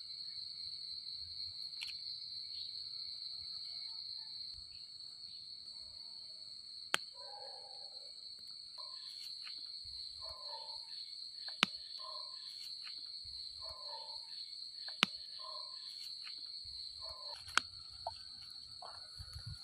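Steady high-pitched insect chorus. Four sharp clicks are spread through it, and faint short low calls repeat in the middle stretch.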